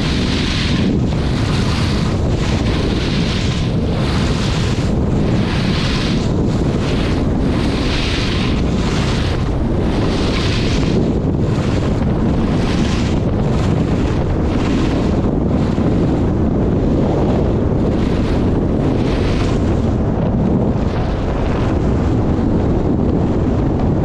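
Wind buffeting the microphone at skiing speed, with a rhythmic hiss of skis carving short turns on groomed snow roughly once a second. The turn hiss weakens in the second half.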